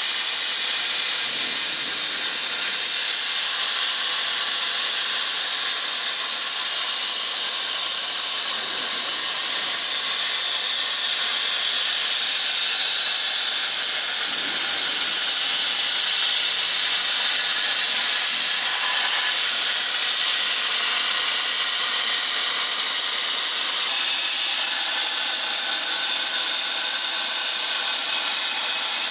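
Plasma cutter cutting steel bracket stock for the rear suspension links, giving a loud, steady hiss that does not change.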